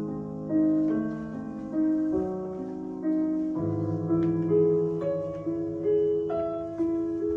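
Slow background piano music: single melody notes, a new one about every second, over held low chords.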